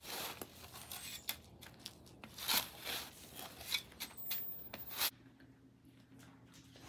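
Irregular rustling and scraping with many sharp clicks, which cut off suddenly about five seconds in, leaving a faint steady hum.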